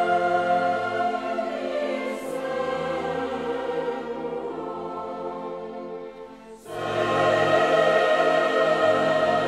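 Choral and orchestral music in sustained chords. The music thins and falls away, then a louder full chord comes in suddenly about two-thirds of the way through.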